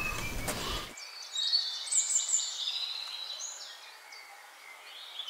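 Outdoor ambience with small birds chirping and twittering in short high calls. About a second in, the low background rumble cuts off abruptly, leaving only the bird calls over a light hiss.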